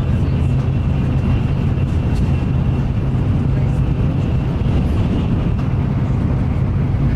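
Shinkansen bullet train heard from inside the passenger cabin, running steadily: an even low rumble of the running gear and air rush, with a faint steady high whine above it.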